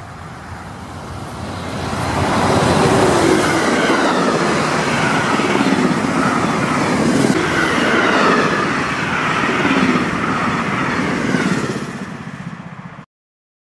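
Amtrak passenger train of Siemens Venture coaches passing fast: rushing wheel-on-rail noise that builds over the first two seconds, stays loud with a repeating beat as the cars and their wheel sets go by, and cuts off abruptly near the end.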